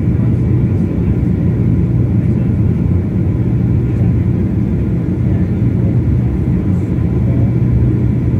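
Boeing 767 jet engines at takeoff thrust, heard from inside the passenger cabin as a loud, steady low rumble with a faint high whine.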